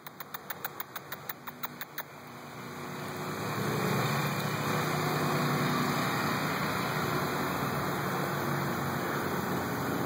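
A motor engine running, building up over the first few seconds and then holding steady. A quick run of ticks, about six a second, stops about two seconds in.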